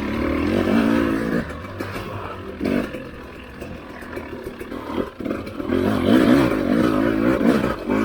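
Husqvarna TE300i two-stroke dirt bike engine revving up and down under varying throttle, easing off in the middle and rising again about five seconds in.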